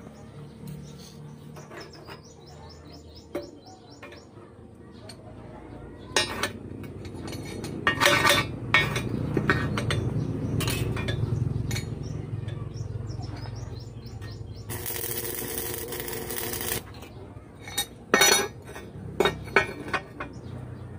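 Loose steel pieces clinking and knocking against a steel beam as they are set in place by hand, with a run of sharp clinks about eight seconds in and again near the end. A hiss lasts about two seconds in between.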